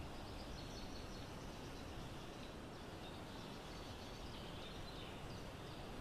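Steady outdoor background hiss with faint, scattered high bird chirps.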